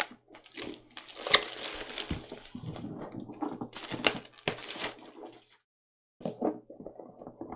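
Plastic shrink wrap being pulled off a board game box and crumpled, an irregular crinkling with a couple of sharper crackles. It breaks off briefly, then fainter rustling follows as the box is handled.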